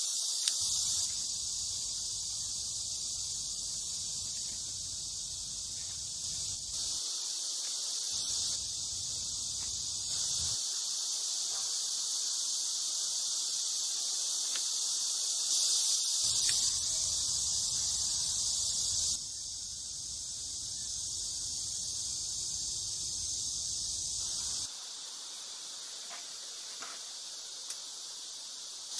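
Steady, high-pitched insect chorus, its level stepping up and down abruptly several times.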